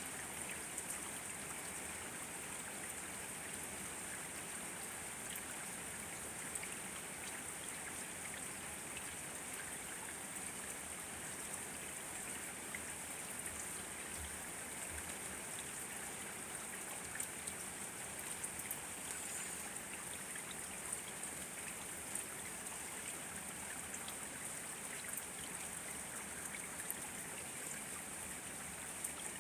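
Steady rain falling: an even hiss with scattered small ticks of drops landing.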